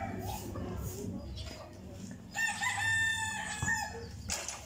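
A rooster crowing once: a single drawn-out call of a little over a second, about halfway through, with a few short knocks around it.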